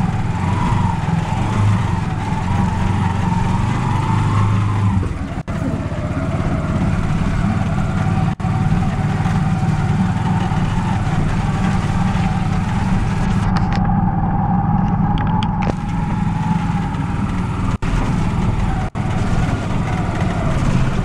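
Motor vehicle running on the road: a steady low engine and road rumble with a wavering whine, broken by several abrupt cuts.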